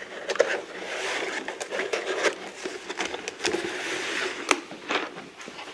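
Die-cast toy cars being packed into a box and the box closed up: rustling and scraping with many light clicks, and one sharper click about four and a half seconds in.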